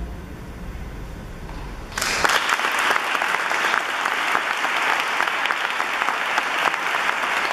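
After a short hush, an audience breaks into applause about two seconds in and keeps clapping steadily.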